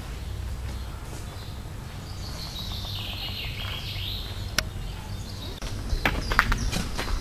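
Birds singing in woodland over a low steady rumble; near the end, footsteps and knocks on a wooden boardwalk.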